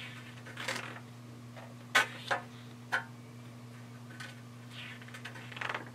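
Pages of a large hardcover picture book being handled and turned: several sharp clicks and taps of stiff paper in the first three seconds, then a short rustle near the end.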